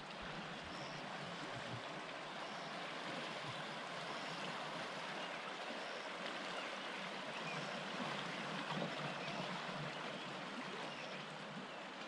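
Steady rush of the Orange River's floodwater flowing past the pump pontoons, with a faint high chirp about once a second.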